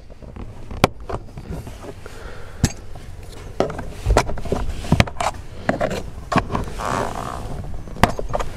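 Plastic interior trim panel on a Chevrolet Cruze being pried off by hand and with a plastic trim tool: the retaining clips let go with several sharp snaps, and the panel scrapes and rustles against the console.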